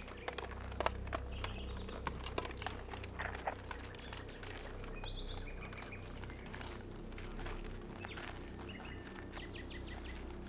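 Birds chirping a few short calls, with scattered clicks and crackles over a steady low rumble.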